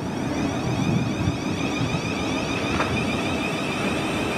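Electric multiple-unit train running through the station: a steady rumble with a high whine over it, and a faint knock about three seconds in.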